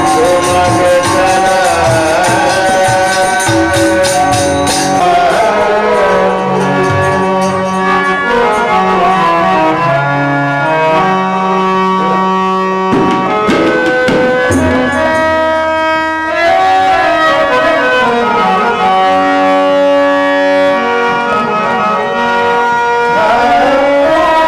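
Devotional song with harmonium and tabla. A man's singing voice is heard at the start and again near the end. In between, the harmonium plays a melody of held notes that move step by step, and tabla strokes are most prominent in the first few seconds.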